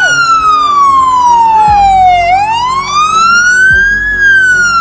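A siren wailing slowly. Its pitch falls for about two seconds, rises again to a peak near the end, then starts to fall once more.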